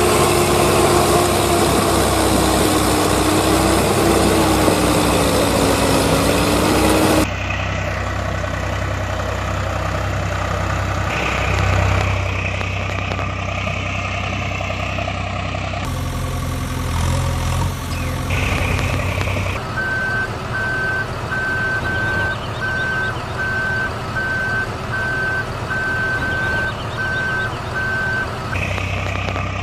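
Heavy vehicle engine sound effects in spliced segments. An engine runs with a wavering pitched whine for about seven seconds, then cuts abruptly to a lower, steadier idle. From about twenty seconds in, a reversing alarm beeps evenly for about eight seconds.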